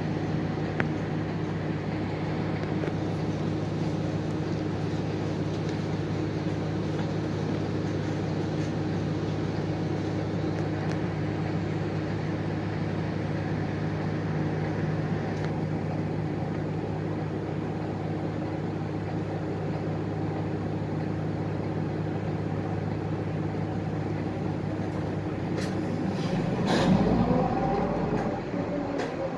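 City bus engine idling while the bus stands still, a steady low hum heard from inside the cabin. About 26 seconds in, the engine note grows louder and rises in pitch as the bus pulls away.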